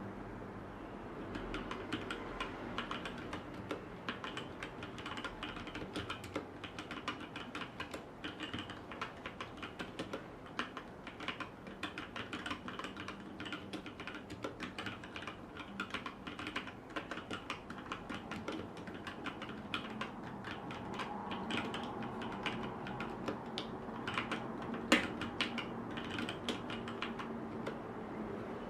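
HyperX Alloy Origins Core mechanical keyboard with red switches being typed on continuously: a fast, uneven run of key clicks, quieter than a blue-switch typewriter clatter, with one louder keystroke near the end.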